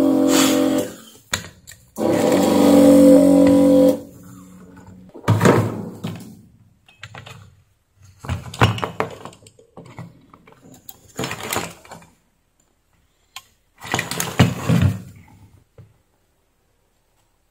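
Vacuum desoldering gun's pump humming steadily, cutting off just under a second in and running again from about 2 to 4 seconds in. Then several rustling knocks as the circuit board is picked up and handled.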